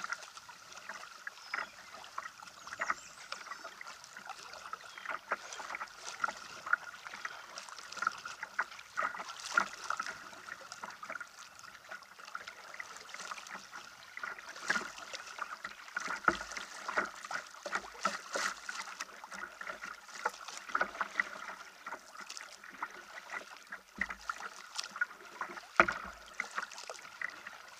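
Choppy river water splashing and lapping against a plastic kayak's bow as it moves through the current, in many small irregular splashes. A faint steady tone runs underneath.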